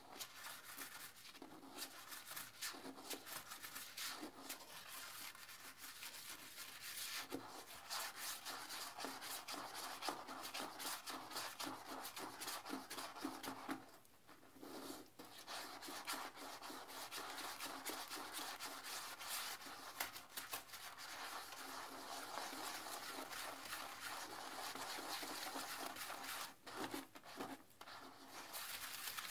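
Round blue toilet brush scrubbing the inside of a porcelain toilet bowl in sudsy cleaner water, a steady rubbing, scrubbing sound with short breaks about halfway through and a couple of seconds before the end.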